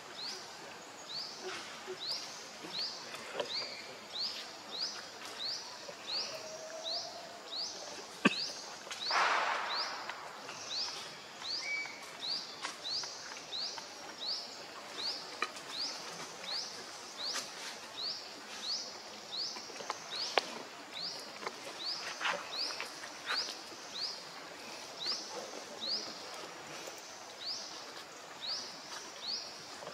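Outdoor ambience with a high, short, rising chirp repeating steadily a little under twice a second. There are a few sharp knocks and a brief rustle of noise about nine seconds in.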